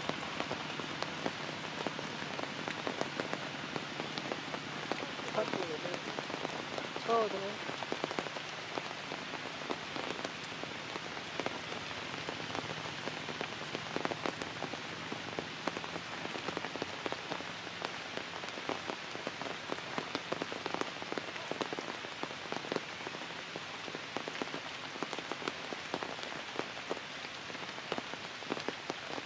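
Steady rain falling on forest leaves and branches, with many small drips and patters, and a brief pitched call about seven seconds in.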